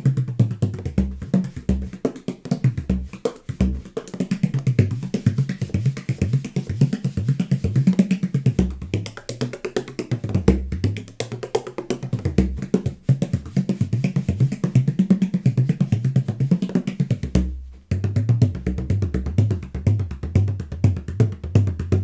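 15.5-inch (37 cm) Hedwitschak bodhrán with a Bass Monster rim and a Dragonskin Classic head, played in quick continuous rhythm with a wooden tipper. Its deep notes shift between lower and higher pitches, and there is a brief break about 17 seconds in before the rolling strokes resume.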